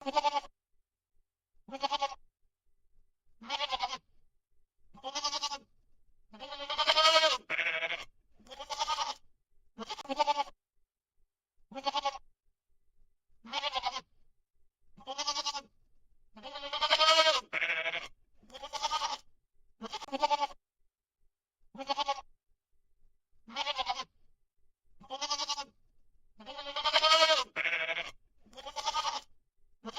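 Goat bleating over and over: short bleats about every one and a half to two seconds, with a longer, louder bleat about every ten seconds. The same run of calls seems to repeat, like a looped recording.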